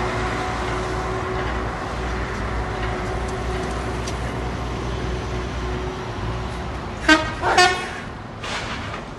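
Diesel engine of a semi-trailer truck running as it pulls past, a steady low rumble under street traffic. About seven seconds in, two short, loud pitched blasts sound about half a second apart.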